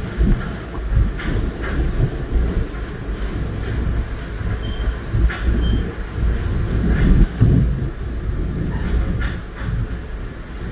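Metro-North commuter train running at speed, heard from inside the passenger car: a steady low rumble with irregular clicks of the wheels on the track.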